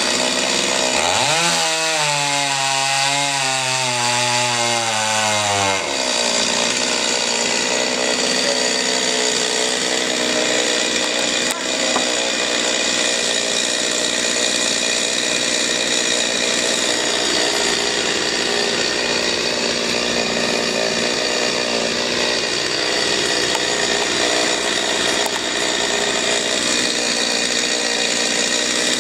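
Chainsaw running at high revs as it cuts into a white pine trunk. Its pitch climbs over the first second or two and holds, and about six seconds in the note gives way to a steady rough buzz that continues unbroken.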